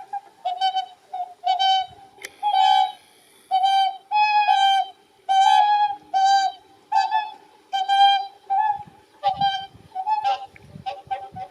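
A flock of whooper swans calling: loud, trumpet-like honks, one or two a second and overlapping, with fainter calls from other birds in the flock behind them.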